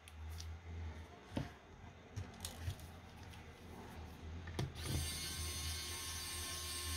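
A few light clicks and knocks as a plastic sensor case and screwdriver are handled. Then, about five seconds in, a small electric screwdriver's motor starts and runs steadily, driving a screw back into the corner of the plastic housing.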